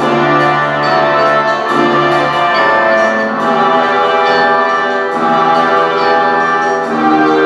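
Orchestral music with brass playing through homemade PVC pipe speakers, with sustained chords that change every second or so. It is picked up by a camcorder microphone in a large room.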